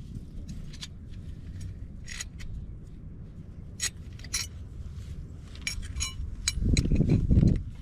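Metal tools and parts clinking and tapping a dozen or so times, irregularly, during hands-on work on an exhaust, with a loud low rushing noise near the end.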